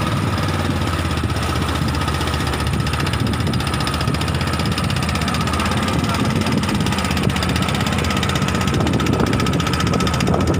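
Small boat's engine running steadily at an even speed.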